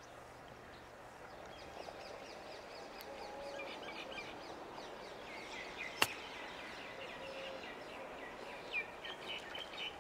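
Birds chirping and twittering in the background, with a few short lower calls. About six seconds in, a single sharp click: a 60-degree wedge striking a golf ball on a chip shot.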